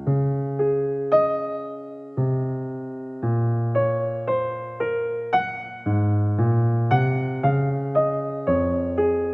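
Background music: a gentle keyboard melody, a new note or chord struck about every half second, each ringing and fading.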